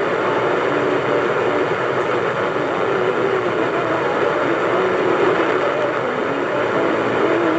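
AM radio tuned to 1450 kHz giving out a steady hiss and rumble of static from distant thunderstorms, with short faint tones drifting underneath as the signal fades.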